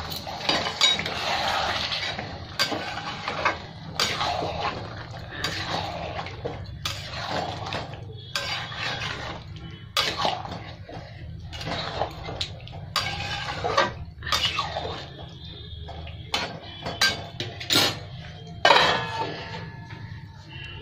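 Metal spatula scraping and knocking against an aluminium kadai as chicken pieces are stirred through a thick tomato and onion masala, in irregular strokes: the kosha stage of slow frying. Near the end there is a louder metal clatter as a steel plate lid goes onto the kadai.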